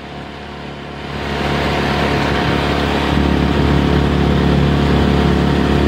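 Outboard motor driving a small aluminium boat under way, getting louder over the first few seconds and then running steadily, with the rush of water and wind along the hull.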